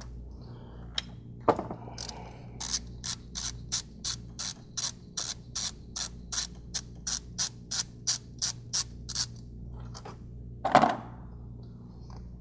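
Hand ratchet clicking in an even run of about four clicks a second as a T27 Torx socket on an extension backs out a vacuum pump mounting screw, with a single louder knock near the end.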